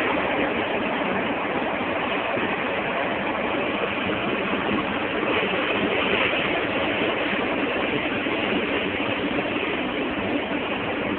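Boat under way at sea: a steady rush of water churned white along the hull, with its engine running underneath.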